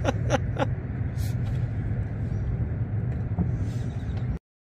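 Steady low wind rumble buffeting the microphone, with a quick run of short cries falling in pitch at the very start. The sound cuts off abruptly near the end.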